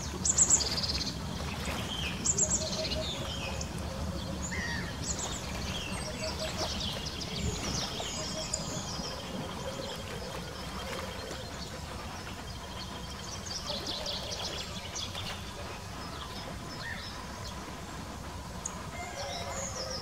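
Birds chirping and calling over a steady low background rumble. The sharpest, loudest chirps come in the first few seconds, with scattered calls after.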